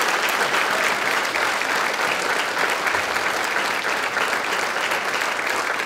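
Audience applauding: many hands clapping, steady throughout.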